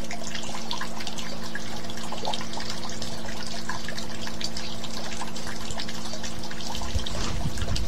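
Steady trickling, dripping water over a low sustained hum, with a low rumble coming in near the end.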